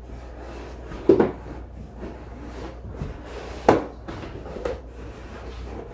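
Large cardboard TV box being moved by hand: scraping and rubbing, with two sharp knocks about a second in and near the middle, and a lighter knock shortly after.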